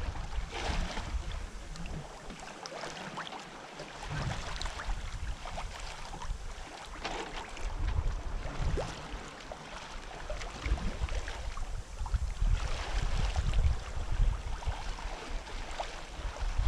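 Sea water rushing and splashing along the hull of a Westsail 32 sailboat under sail, with wind buffeting the microphone in gusts that ease off for a moment a couple of seconds in.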